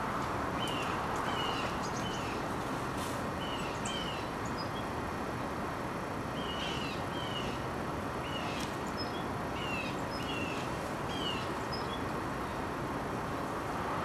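Small birds chirping: short, hooked high notes, often in pairs, repeating every second or two over a steady background rumble.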